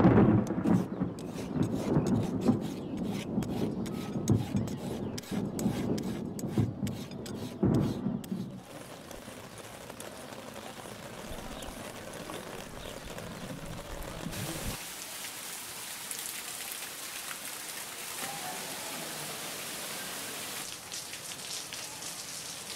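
Thunderstorm: rolling thunder for about the first eight seconds, then steady rain falling, which turns to a higher, sharper hiss of heavy rain on hard surfaces about fifteen seconds in.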